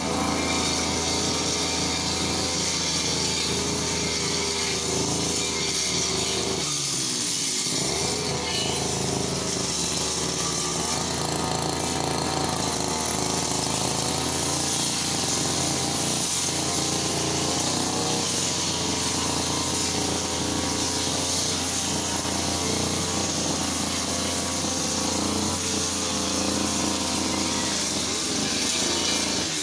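Brush cutter engine running at high revs. The revs drop sharply about seven seconds in and climb straight back, with smaller wavers in speed later on.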